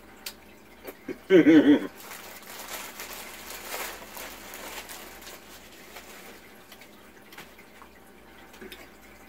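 Faint, wet chewing and mouth sounds of a person eating, with a brief voiced sound about a second in.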